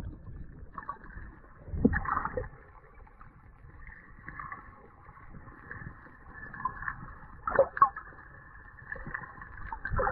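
Muffled underwater sound heard from inside a camera's waterproof housing: a steady wash of water with a few low thuds and knocks, the loudest about two seconds in and near eight seconds.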